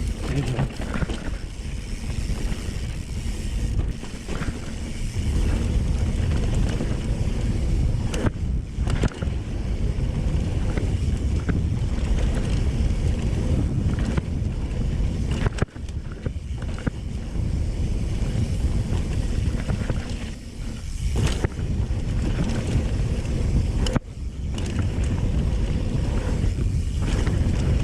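Mountain bike descending a rough dirt trail: a steady rumble and rattle of tyres and frame over the ground, with wind buffeting the microphone. The noise dips briefly a few times.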